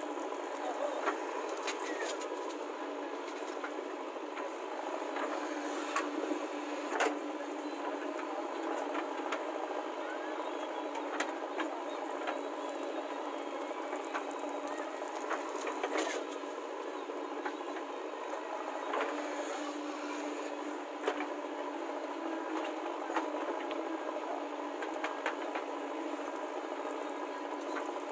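JCB 3DX backhoe loader's diesel engine running steadily as it works the digging arm, with occasional sharp knocks and clanks from the bucket and boom.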